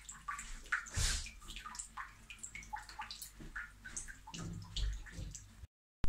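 Water dripping and trickling inside an open toilet cistern, in small irregular drops, with a couple of dull thumps.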